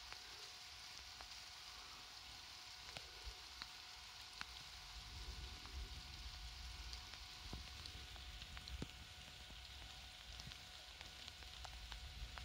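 Faint light rain: a soft steady hiss with scattered individual drops ticking close by. A low rumble swells around the middle and again near the end.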